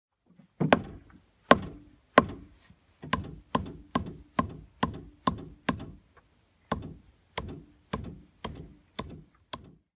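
A tool striking wood in a quick series of sharp blows, about two a second, sixteen in all, with a short break a little past the middle.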